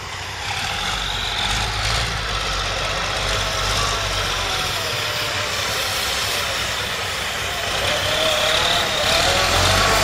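Logging truck's diesel engine running under load as the truck works in deep mud. The engine note wavers up and down and grows a little louder near the end.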